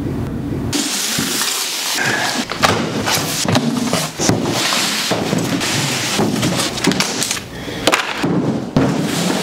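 Cardboard rustling and scraping as a large shipping box is opened and couch parts are pulled out, with many sharp knocks and thuds from the handling.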